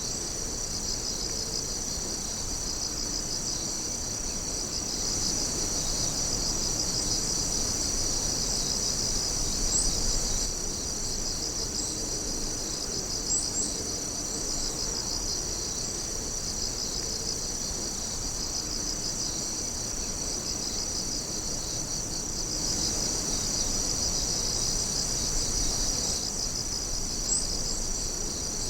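A dense chorus of night insects chirping and trilling, high-pitched and continuous, with a steady pulsing rhythm and a few sharper single chirps standing out.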